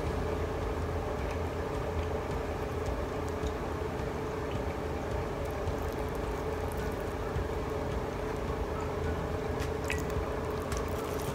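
Soft chewing and wet mouth sounds of someone eating a thick, cakey sweet martabak, with a few faint clicks, over a steady low hum.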